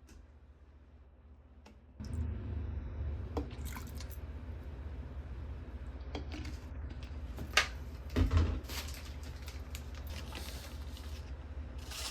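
Wet, squishy kitchen food-preparation sounds with scattered clicks, over a steady low hum that starts abruptly about two seconds in.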